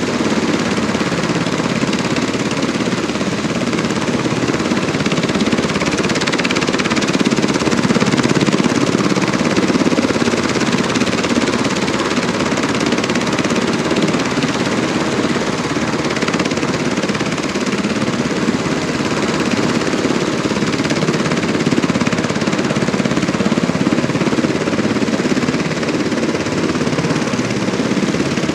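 UH-60 Black Hawk helicopter running on the ground with its rotors turning: the steady sound of its twin turboshaft engines under a fast, even rotor chop.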